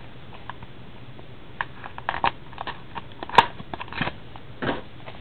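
Clear plastic wrapper of a trading-card pack crinkling and tearing as it is peeled open by hand, in scattered crackles with one sharp snap about three and a half seconds in.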